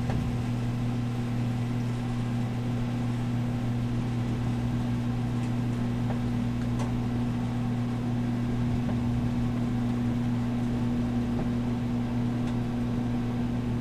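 Steady electrical hum inside a spinning human centrifuge gondola: a low drone with a fainter tone an octave above, over an even hiss. It holds the same pitch while the G load rises.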